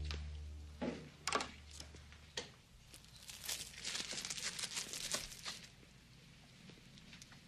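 Faint footsteps and rustling, with a dense crinkling stretch from about three to five and a half seconds in. A low held music note fades out about two seconds in.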